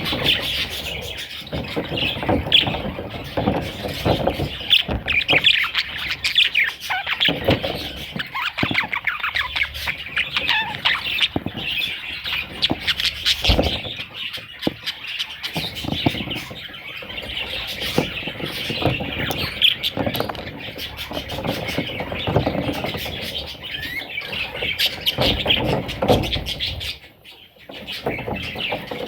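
Pet budgerigars chattering and chirping, a dense stream of rapid high chirps, with a brief lull near the end.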